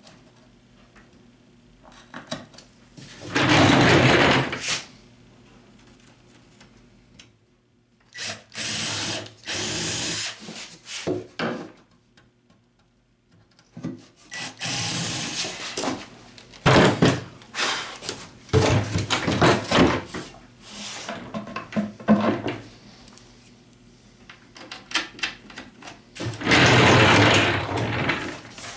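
Power drill running in several separate bursts, each a second or two long, while the scroll saw is bolted down to its stand, with shorter knocks and handling sounds in between.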